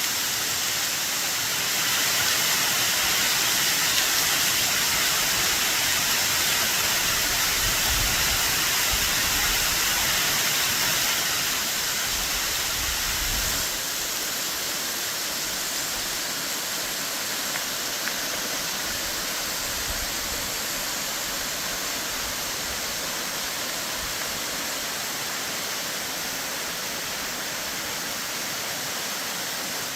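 Waterfall at high spring-runoff flow: a steady, full rush of cascading water that eases slightly in loudness about halfway through.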